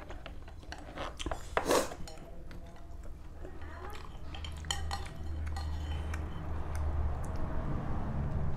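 Chopsticks and a metal spoon clinking and scraping against a bowl as noodles are stirred and lifted: a string of light clicks, with one louder, rougher sound about two seconds in.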